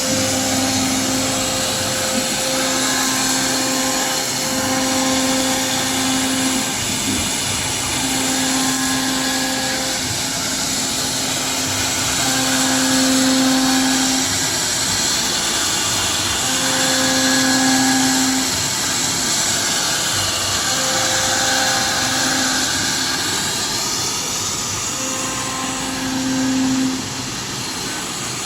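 CNC router cutting MDF: the spindle and bit make a steady high rushing noise. Under it a low hum comes and goes in stretches of a second or two.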